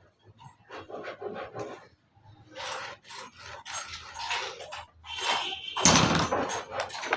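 Irregular knocks, clicks and scrapes of wooden pieces being handled, with a louder scraping burst of about a second near the end.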